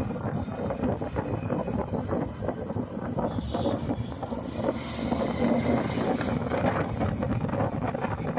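Honda Unicorn motorcycle's single-cylinder engine running steadily, making the noise its owner flags as a fault.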